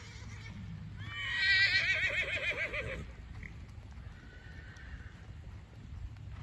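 A horse whinnying: one long call with a quavering pitch, starting about a second in and lasting some two seconds.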